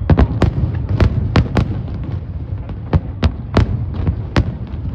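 Fireworks exploding: a rapid, irregular string of sharp bangs, about a dozen in five seconds, over a continuous low rumble.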